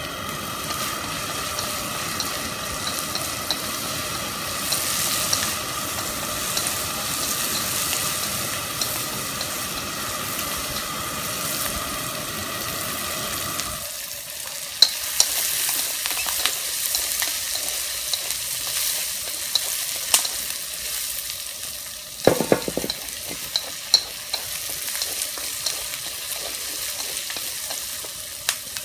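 Corn kernels and diced carrot sizzling as they stir-fry in a wok over a gas burner. A steady hum over the sizzle stops suddenly about halfway through as the burner is adjusted, and sharp clicks of chopsticks against the wok follow in the second half.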